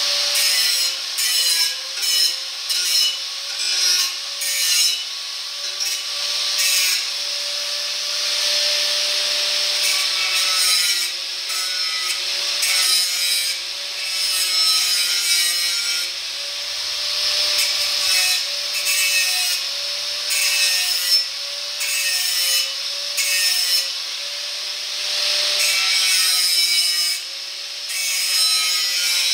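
Corded angle grinder running with a steady high whine, its abrasive disc cutting and grinding the steel of an S10 truck frame rail, throwing sparks. The scraping noise of the disc on the steel comes and goes as it bites in, most choppy in the first several seconds and again near the end.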